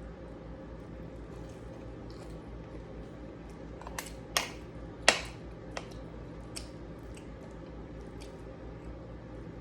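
Eating sounds: a few sharp crunches and clicks of chewing and utensils, the loudest about four and five seconds in, over a steady low hum.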